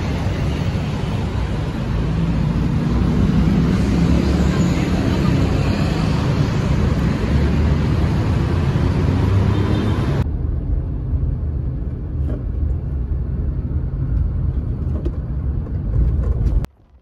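Busy city street traffic: cars running past with steady road noise. About ten seconds in it changes suddenly to the duller, low rumble heard from inside a moving car.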